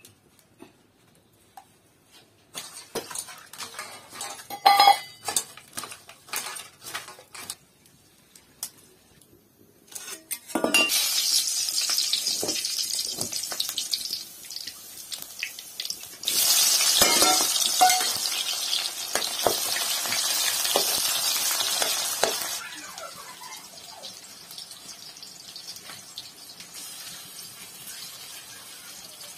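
Metal pots and utensils clinking, with one metal ringing about five seconds in. Then food hits hot oil in a steel kadai and sizzles loudly, twice, the second time as chopped onion goes in, settling to a quieter steady sizzle as it fries.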